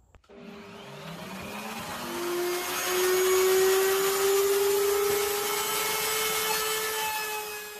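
Logo-sting whoosh sound effect: a swelling rush of noise with several slowly rising tones, building over the first few seconds, holding, then fading near the end.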